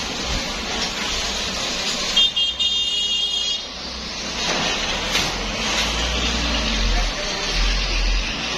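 Road traffic noise with a low vehicle rumble; a horn sounds for about a second and a half a couple of seconds in, and the rumble swells near the end as a vehicle passes.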